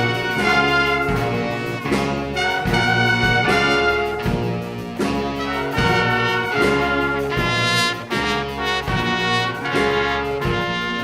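Live ensemble music led by brass, with trumpet and trombone playing pitched notes in a steady rhythm.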